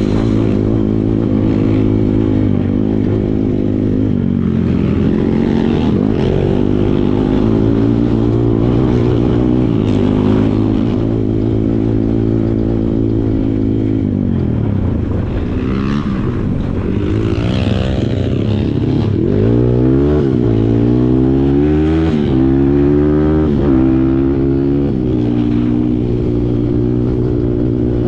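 Kawasaki KLX140 dirt bike's single-cylinder four-stroke engine running under load. The revs hold fairly steady at first, then repeatedly dip and climb in the second half as the throttle is rolled off and opened.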